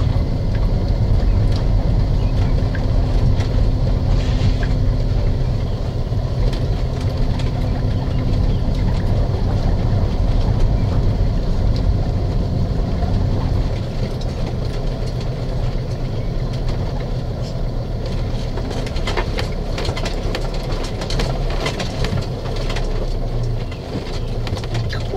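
Motorhome engine running as it drives slowly along a gravel lane, a steady low drone heard from inside the cab. It eases off a little about halfway through, and scattered crackles and clicks come in over the last few seconds.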